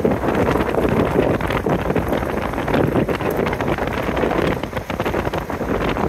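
Wind rushing and buffeting over the microphone of a car driving along a gravel road, with tyre and road noise underneath.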